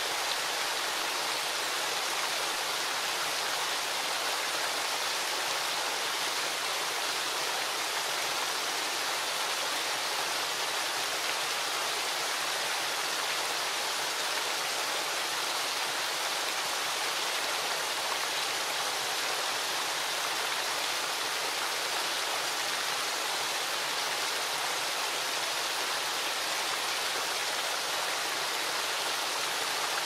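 Rushing white water of a rocky river cascade: a steady, even hiss with no breaks.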